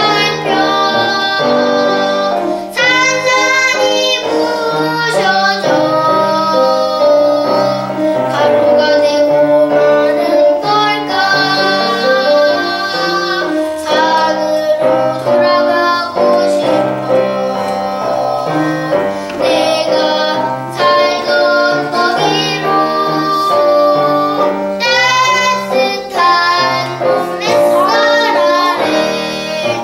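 Young children singing a song with piano accompaniment.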